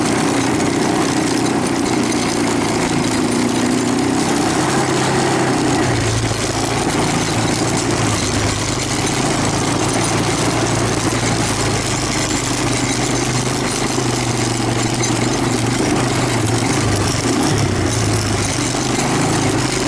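2000 Honda Recon 250 ATV's single-cylinder four-stroke engine running steadily as the quad is ridden, its note changing a few times with the throttle.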